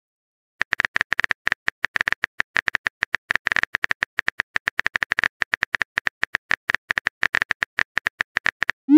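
Keyboard tap sound effect of a texting-story app: quick, uneven clicks, about ten a second, starting about half a second in, as a chat message is typed out. Right at the end a short rising swoosh as the message is sent.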